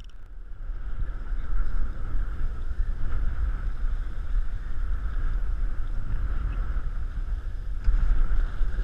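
Strong wind rumbling across the camera microphone, with choppy water sloshing against a small boat's hull; a little louder near the end.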